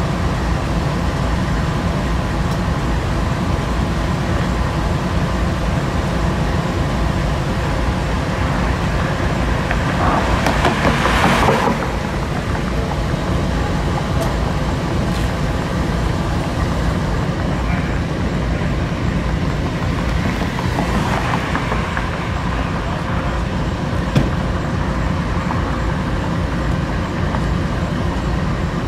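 Diesel-electric freight locomotive idling at a standstill, a steady low engine hum with several fixed tones. About ten seconds in, a loud hiss rises for a second or two, then the idle carries on.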